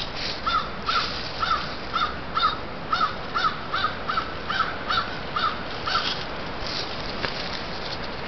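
Wild turkey yelping: a series of about a dozen short, evenly spaced yelps, about two or three a second, that stops after some six seconds.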